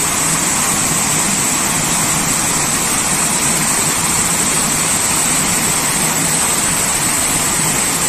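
Gorge stream water spilling over low concrete weir steps: a steady rushing splash.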